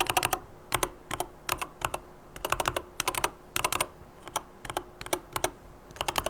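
Typing on a Corsair K70 MAX keyboard with Corsair MGX magnetic linear switches: quick clusters of a few keystrokes each, separated by short pauses.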